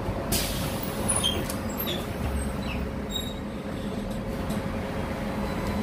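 City bus running, a steady mechanical rumble with a constant hum. A short hiss comes about half a second in, and a few faint high squeaks follow over the next couple of seconds.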